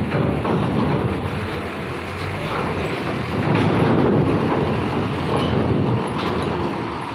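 Diesel box truck running close by as it rolls across steel deck grating toward a ferry's loading ramp: a steady low engine and rolling rumble with a few faint knocks, swelling a little around the middle.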